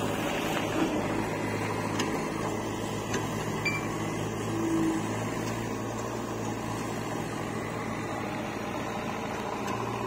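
Swaraj 742 FE tractor's three-cylinder diesel engine running steadily, a low even hum, as the tractor pulls a trailer.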